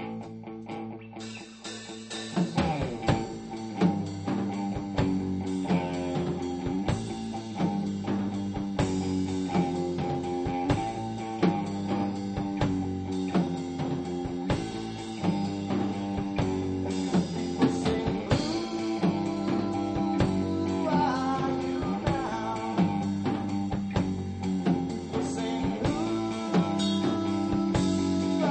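Instrumental passage of a rock song: guitar playing with little else for about the first two seconds, then drums and bass come in and the full band plays on with a steady beat.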